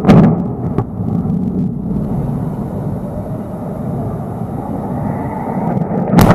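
Demolition charges felling a tall industrial smokestack: a sharp blast at the start and a smaller crack just after, then a steady low rumble lasting several seconds, and another sharp blast near the end.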